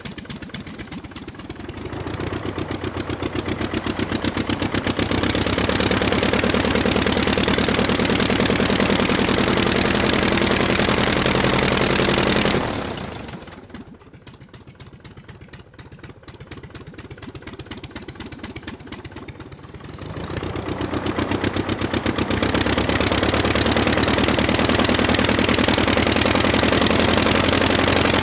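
Aircraft piston engine running with a rapid firing clatter. It is throttled up about two seconds in, falls back to a low idle around the middle, then is run up again about two-thirds of the way through.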